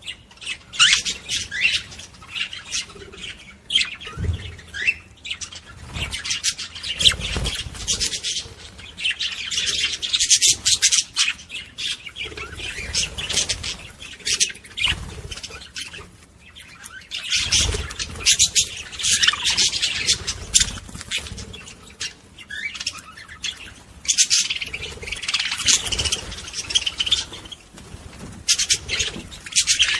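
A group of ornamental cage birds kept together, chirping and squawking continually, in busier and quieter stretches, with a few low thuds.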